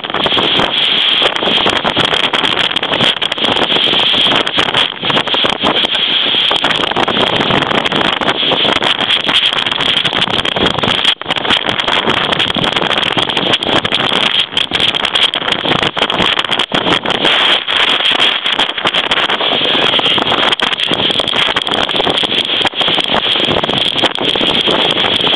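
Typhoon-force wind blasting across the microphone: a loud, unbroken rushing roar that flutters in strength from moment to moment.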